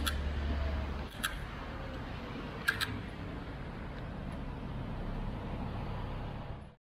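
Tatra T4R tram running slowly up to and past, a steady low rumble, with a few sharp clicks: one at the start, one about a second in, and a close pair near three seconds.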